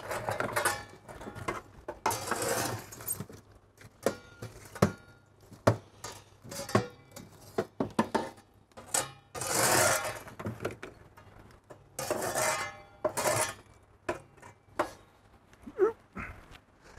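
Pizza peel scraping across the floor of a wood-fired pizza oven and knocking against the burning logs and the oven's metal mouth as the fire is pushed to the back. Several scrapes of about a second each, with many sharp clinks and knocks between them.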